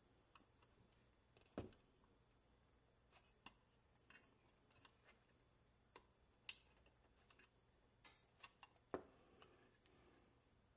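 Faint, scattered clicks and light taps of small metal parts and a hand tool being handled on a tin toy boat, about a dozen irregular ticks over near silence.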